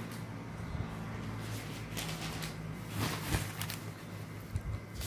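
Low steady hum with a few soft rustles and knocks, about two seconds in and again around three seconds in.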